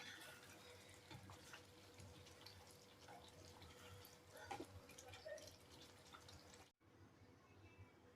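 Near silence with faint, scattered small clicks and drip-like ticks, cut off abruptly about two-thirds of the way through.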